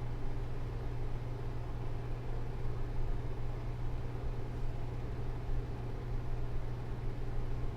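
Room tone dominated by an air conditioner running steadily: an even hum with a low drone and a soft hiss of moving air.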